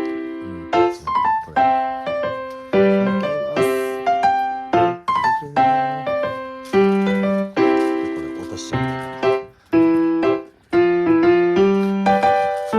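Background piano music: a light melody of struck chords, each dying away before the next.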